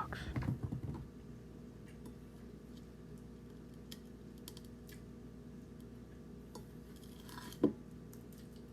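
Whispering trails off in the first second, then faint scattered clicks and handling noises, with one sharp knock about three quarters of the way through.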